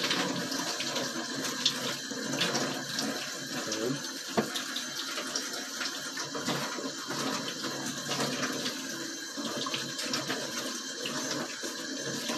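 Kitchen tap running into a stainless steel sink, the stream splashing over hands that are peeling the charred skin off a grilled eggplant. A steady rush of water with small irregular splashes and ticks, and one sharper click about four and a half seconds in.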